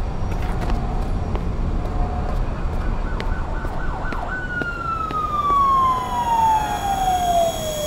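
Emergency vehicle siren in city traffic: a few quick up-and-down sweeps about three seconds in, then a long wail falling slowly in pitch and starting to rise again right at the end, over a steady low rumble of traffic.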